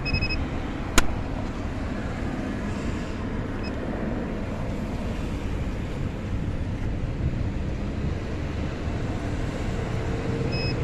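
Optical fibre fusion splicer giving a short beep, then a sharp click about a second in as its cover is shut, before it sets to aligning the fibres; another short beep near the end. Steady background noise runs underneath.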